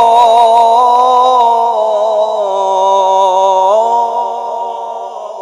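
Male Qur'an reciter drawing out one long melodic note of tilawat. His voice wavers at first, then holds steady, steps up in pitch a little before four seconds in, and fades away toward the end.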